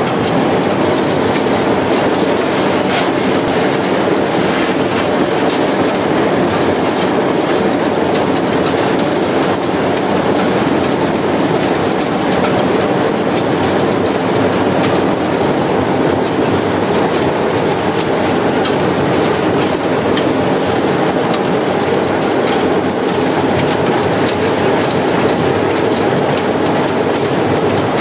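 Industrial vacuum cleaner running steadily, a loud even motor-and-airflow noise with hiss that does not change.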